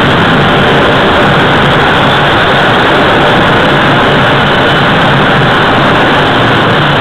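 Jet engines running on an aircraft carrier's flight deck: a loud, steady roar that holds level throughout.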